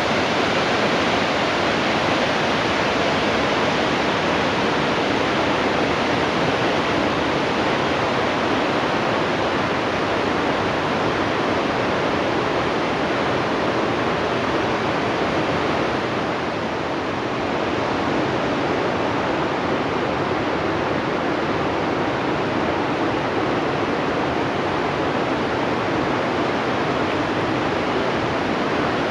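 Fast mountain river rushing over rocks: a steady, loud rush of whitewater, dipping slightly about halfway through.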